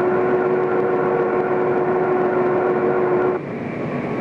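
A steady machine drone with a strong held tone over a noisy hum. About three seconds in it cuts abruptly to a rougher, noisier hum without the tone.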